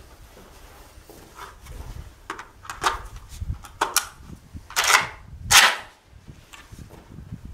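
Sharp metal clicks and clacks of a JTS AK-style 12-gauge shotgun being readied: a box magazine seated and the action worked. The two loudest clacks come about two-thirds of a second apart, a little past the middle.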